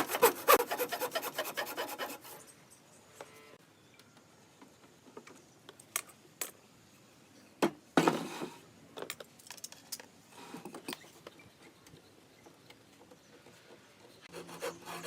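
Hand saw cutting wood in quick, even strokes that stop about two seconds in. A few scattered knocks and a short scrape of wood follow. The sawing starts again just before the end.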